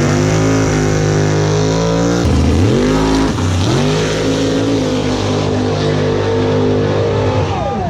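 Car engine at a drag strip running hard at high revs. Its pitch drops sharply and climbs back twice, about two and three seconds in, and falls away near the end.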